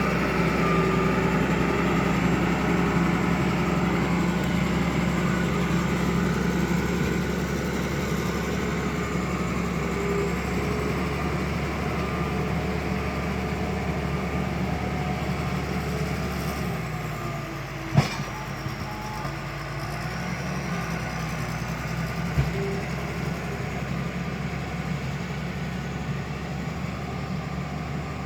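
Bulldozer's diesel engine running steadily, its note dropping slightly about two-thirds through. A single sharp metallic knock comes just after the drop, and a smaller thump follows a few seconds later.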